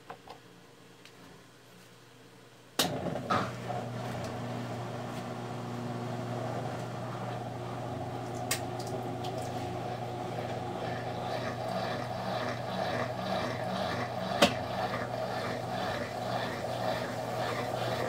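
Brastemp Ative BWL11 top-loading washing machine starting its spin. There is a click about three seconds in, then a steady motor hum as the basket spins up, growing slightly louder towards the end, with a couple of sharp ticks along the way.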